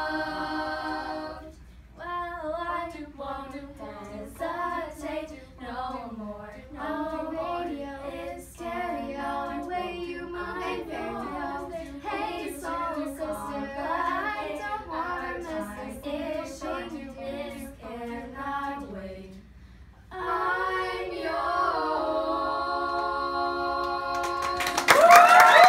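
Small all-female a cappella group singing in close harmony with no instruments. Near the end they hold a long final chord, and the audience breaks into cheering and applause just as it ends.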